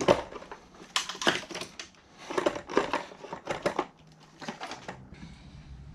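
Car battery being set down and shuffled into its tray by hand: a run of irregular knocks, clunks and scrapes of the plastic battery case against the tray and surrounding trim, tapering off about five seconds in.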